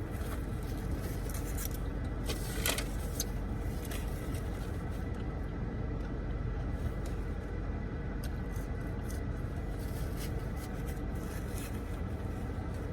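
Steady hum of a car's air conditioning running, with faint crunchy clicks of chewing a crispy fried chicken sandwich scattered over it.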